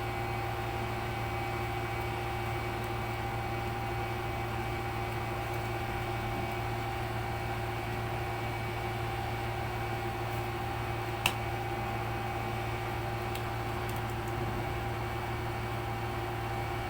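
Steady electrical hum with a fan-like whir, holding several fixed tones at an even level, and one short sharp click about eleven seconds in.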